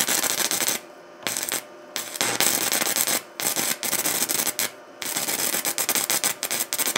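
Small 110-volt inverter stick welder's arc crackling and sputtering in bursts, going out and restriking again and again. The arc will not hold long enough to run a bead. The owner puts this down to the battery power station's inverter not working well with the welder's inverter.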